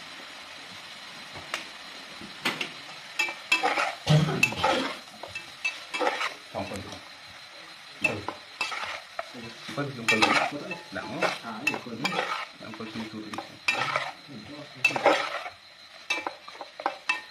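A metal ladle scrapes and clatters irregularly against an aluminium pot as duck pieces are stir-fried, over a steady sizzle. The stirring strokes start about a second and a half in.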